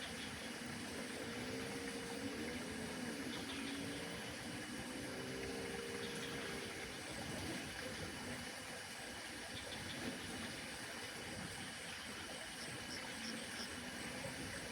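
Steady outdoor mountain ambience: an even background hiss, with a faint wavering hum in the first half that fades out.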